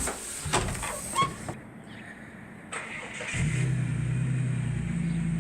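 A few sharp knocks, then a Ford V8 ute's engine starts a little over three seconds in and keeps running steadily.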